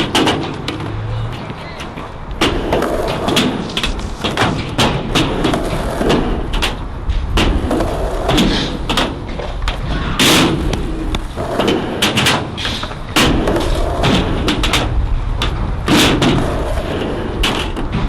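Skateboards rolling on concrete with a steady low rumble, broken by many sharp irregular clacks and thuds of boards and wheels striking the ground.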